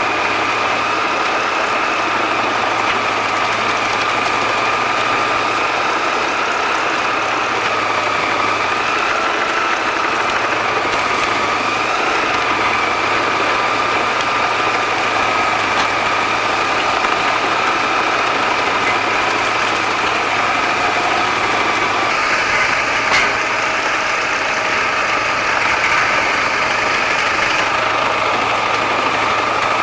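Wood chipper running steadily without load, with a steady high whine over its engine hum. A single sharp click comes near the end.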